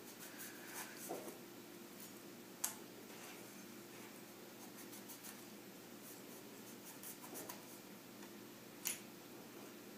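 A kitchen knife scoring the rind of a pomegranate, a faint scratching and cutting sound as the blade is drawn along the fruit, with two sharp clicks, one about three seconds in and one near the end.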